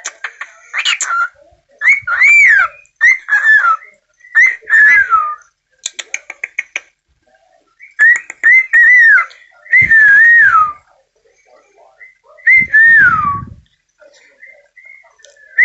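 A pet parrot whistling a string of short phrases that rise and then fall, with pauses between them and quick clicks in between.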